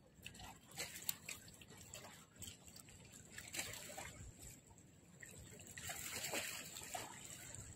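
Faint sea water lapping and trickling against shore rocks, with small irregular splashes and swells.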